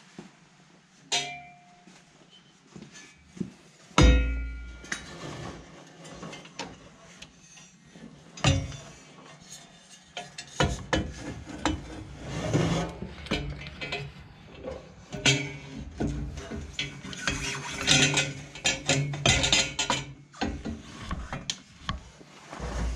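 Steel long-tube header tubes clanking and scraping against the engine and chassis as the header is worked down into the engine bay: a loud ringing clank about four seconds in, then a long run of metal knocking and rattling.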